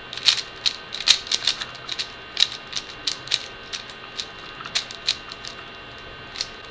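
Rubik's cube being turned quickly: a run of irregular plastic clicks and clacks from the layers, thick in the first few seconds and thinning out after.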